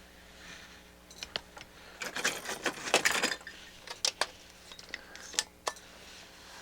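Small hard objects being handled on a workbench: scattered sharp clicks and taps, with a denser burst of rattling and scraping about two seconds in.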